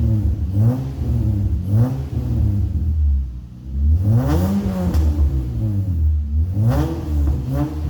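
Acura CL Type S's J32A2 3.2-litre V6 free-revving through a 3-inch cat-back exhaust with P2R mufflers. Several quick throttle blips, each rising and falling, settle toward idle about three seconds in, followed by two longer, higher revs.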